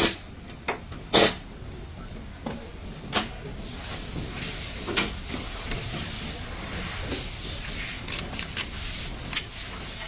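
Scattered knocks and clicks of metal parts and hand tools being handled, with one louder knock about a second in, over a steady hiss.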